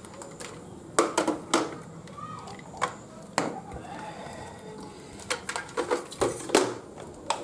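Irregular clicks and knocks of hard plastic laptop parts and a charger being handled and set down on a hard surface: a quick cluster about a second in, a couple of single knocks, then a busier run of clicks near the end.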